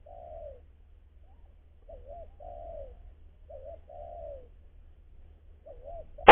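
Spotted dove (tekukur) cooing: a short looping note followed by a longer falling one, the phrase repeated about every two seconds.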